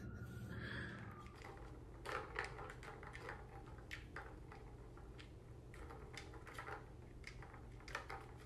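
Faint, irregular small clicks and ticks, a few a second, over a steady low hum.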